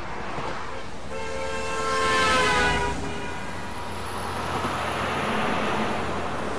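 Highway traffic going by: a vehicle horn sounds for about two seconds starting a second in, its pitch sagging slightly as the vehicle passes, over the rush of engines and tyres. Another vehicle passes later.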